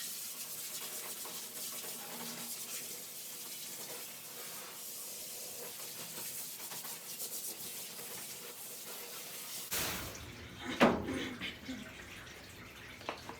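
Water spraying steadily onto a poodle puppy's coat as he is wet down for a bath, then stopping abruptly about ten seconds in. A brief, loud sound follows about a second later.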